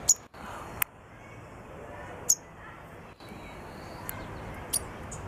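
White-crowned sparrow giving short, sharp, high-pitched chirps, five in all, the loudest right at the start and about two seconds in.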